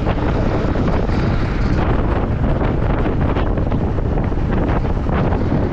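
Loud, steady wind noise buffeting the microphone while riding a KTM Duke 250 motorcycle, with most of the rush in the low end.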